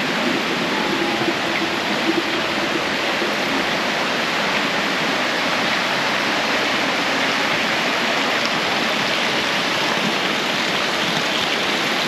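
Steady rush of water from a tiered waterfall and the stream running over rocks below it.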